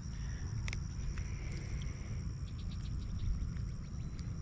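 Insects trilling steadily in a continuous high tone, over a low rumble, with a few light clicks scattered through.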